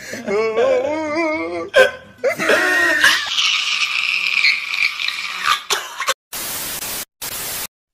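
A man wailing and sobbing loudly in a wavering voice, which rises to a high, strained cry about two seconds in and holds for a few seconds. Near the end come two short bursts of static hiss that start and stop abruptly.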